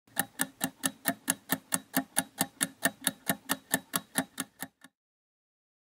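Stopwatch ticking sound effect, a steady run of sharp ticks at about four and a half a second. The last few ticks fade, and the ticking stops about a second before the end.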